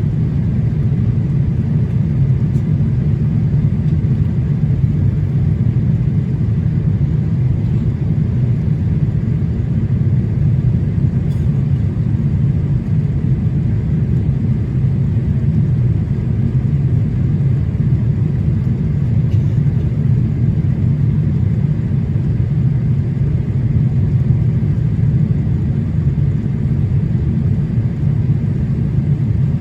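Steady low rumble inside the cabin of a Boeing 787-8 Dreamliner in flight on approach: engine and airflow noise, even and unchanging throughout.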